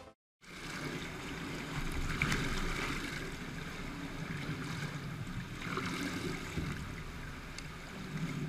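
Choppy pool water sloshing and splashing against the edge as a swimmer comes up to the wall, heard through a camera sitting at the waterline. The splashing swells about two seconds in and again near six seconds.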